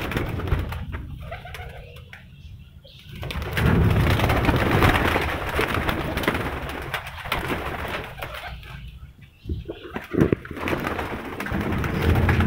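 Domestic pigeons cooing in a loft, with several seconds of loud wing flapping and rustling in the middle as the birds are disturbed.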